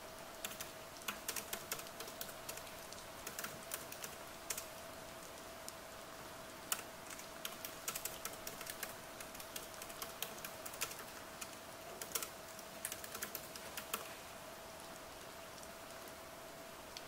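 Typing on a MacBook laptop keyboard: quick irregular runs of key clicks with short pauses, stopping about three seconds before the end. A steady faint hiss runs underneath.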